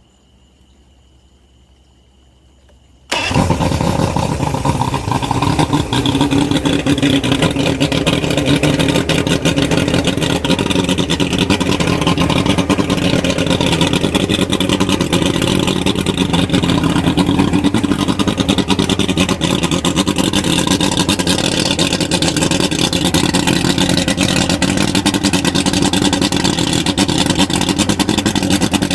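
A faint steady high tone for about three seconds. Then the carbureted Mercury 200 hp two-stroke V6 outboard fires abruptly and runs steadily, freshly rebuilt carburetors (new inlet jets and seats, reset float levels) keeping it running well.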